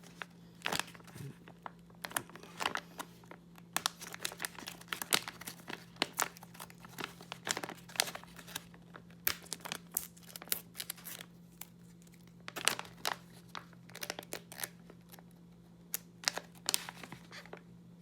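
Packaging bag of charging cables being handled and opened, crinkling and rustling in irregular crackles throughout, over a steady low hum.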